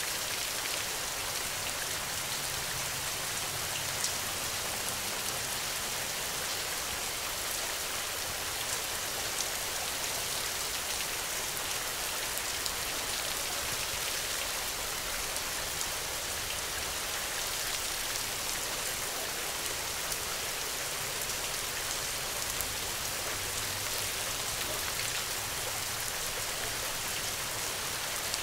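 Steady rain, an even hiss with many scattered sharper ticks, one of them stronger about four seconds in.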